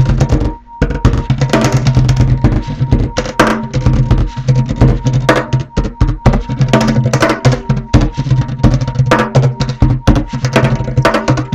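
Music with a busy drum and percussion beat over steady low held notes.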